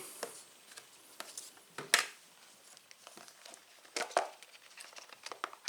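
Packaging being handled during a phone unboxing: scattered rustling and crinkling with short clicks, the sharpest about two seconds in and another cluster about four seconds in.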